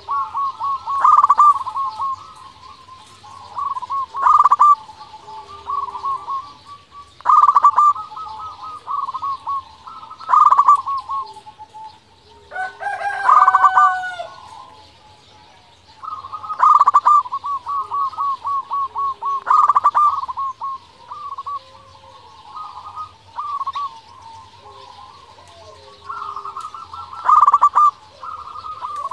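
Zebra dove (perkutut) cooing over and over, each phrase a quick run of rolling notes, repeated every few seconds. A rooster crows once about halfway through.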